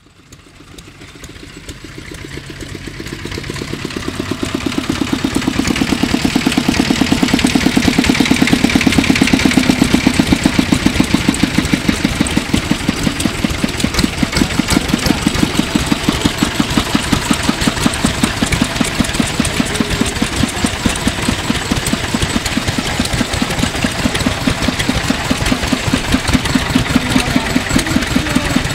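A 1958 Kubota Universe KND5 engine on a Kubota KF rotary tiller running steadily with an even, rapid beat of firing strokes. It rises in level over the first few seconds, then holds.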